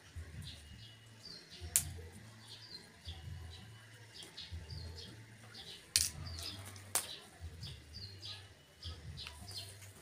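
Small birds chirping repeatedly, short quick calls over and over. A few sharp clicks of tools being handled stand out, the loudest about six seconds in as a screwdriver is set down on the tile floor, over a low pulsing hum.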